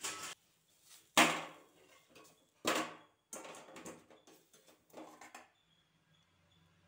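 Knocks and clatters of roasted tomatoes being lifted off a metal wire rack and set down in a steel plate, about five in a row, the one about a second in the loudest.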